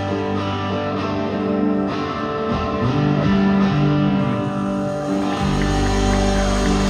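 Live rock band playing, guitars to the fore, with sustained chords ringing. About five seconds in, a low rumble and crowd noise rise under the music as the song winds down.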